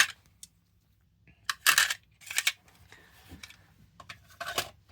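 Stone specimens being handled and set down: a few sharp clicks and short rustles, the loudest about one and a half seconds in.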